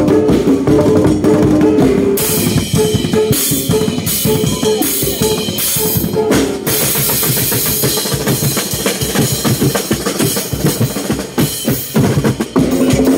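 Live percussion ensemble: hanging bossed gongs beaten in a repeating pitched pattern over fast drumming, with a crash cymbal struck repeatedly from about two seconds in.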